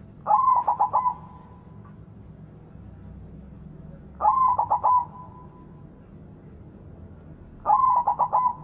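White zebra dove (perkutut) cooing: three phrases about three and a half seconds apart. Each phrase is a quick stutter of about five notes trailing off into a short held note.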